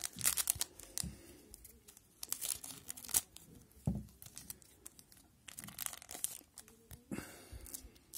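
Foil wrapper of a hockey trading-card pack being torn open and crinkled in hand, in several short bursts of ripping and rustling, with a dull bump about four seconds in.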